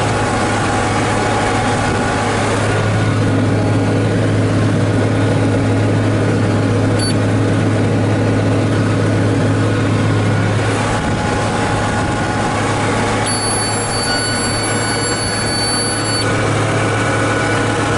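John Deere 4055 tractor's six-cylinder diesel engine running steadily with a deep, even hum. A thin high tone sounds for about three seconds near the end.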